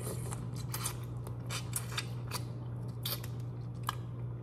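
Irregular sharp clicks and crackles of broiled shell-on shrimp shells being worked at close range, over a steady low hum.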